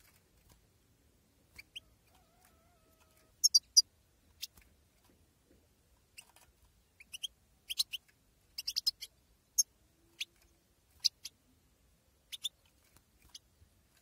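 European goldfinch giving short, sharp, high calls, scattered singly and in quick runs of two or three, with a loud triple call about three and a half seconds in.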